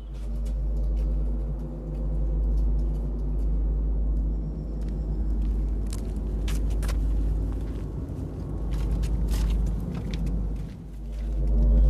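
A low, steady rumbling drone with several held tones over it. Scattered faint clicks sound through it, and it dips briefly near the end.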